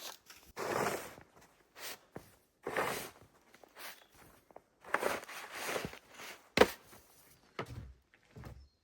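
Footsteps crunching through deep snow, slow and uneven, about one step every second or two, with a single sharp knock about two-thirds of the way through.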